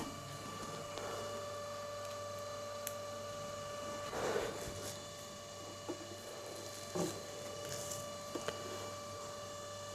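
Plastic monitor stand being handled and fitted to the monitor: a soft rustle about four seconds in and a few light knocks, over a steady faint electrical hum.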